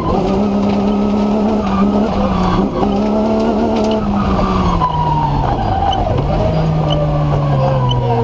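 BMW M3 engine in a TMC off-road racer running hard, heard from inside the cabin. The revs hold steady, fall away about five seconds in, then pick up and settle at a lower pitch.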